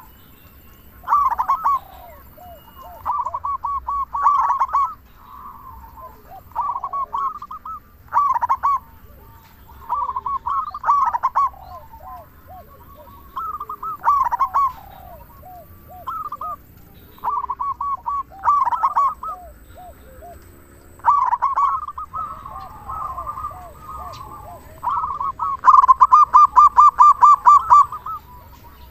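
Zebra dove (perkutut) cooing in its rapid rolling song: short bursts of quick repeated notes about every two seconds, then a longer, louder run of fast notes near the end.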